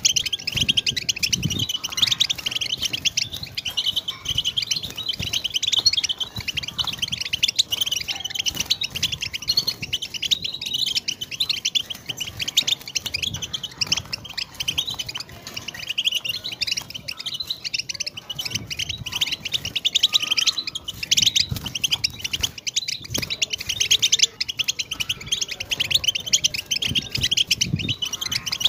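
European goldfinch singing: a continuous, fast twittering song of rapid chirps and liquid trills.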